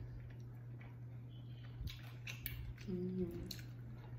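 Close-up eating sounds of a consommé-dipped birria taco: soft wet smacks, squishes and chewing clicks, with a short hummed "mm" about three seconds in.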